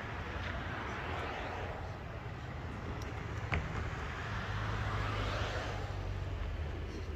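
Road traffic passing, two vehicles swelling in and fading out one after the other over a steady low hum. A single sharp knock sounds about halfway through.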